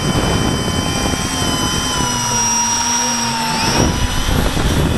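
Electric motors and propellers of an H-frame FPV quadcopter, heard from its onboard camera: a steady multi-tone whine over a low rushing of wind and propeller wash. The pitch shifts briefly about three and a half seconds in as the throttle changes.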